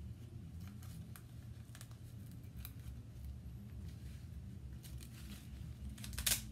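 Hard face mask and its straps being handled: scattered small clicks and rustles, with a brief louder rasping noise about six seconds in.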